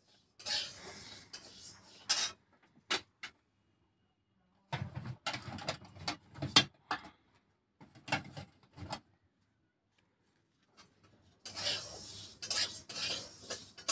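Intermittent rustling and scraping noises with a few sharp clicks, broken by stretches of dead silence.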